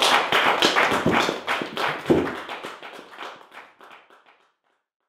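Applause: hand-clapping of a small audience after the tune ends, a quick run of sharp claps that fades out over about four seconds.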